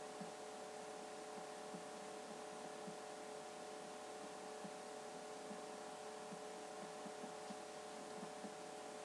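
Faint, steady electrical hum at a few pitches, with soft, irregular taps of a pen drawing on paper at a desk.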